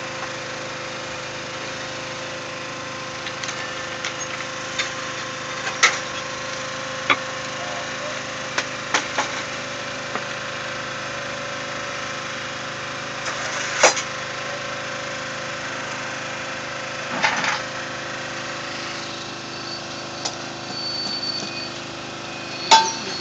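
Steady hum of a small engine running, with scattered sharp cracks and knocks every few seconds.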